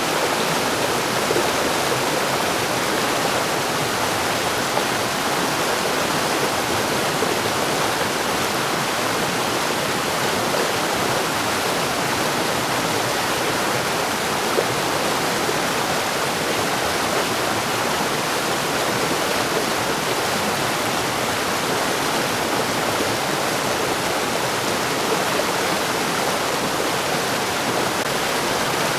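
Mountain stream rushing steadily over rocks, a continuous even wash of water noise with no change in level.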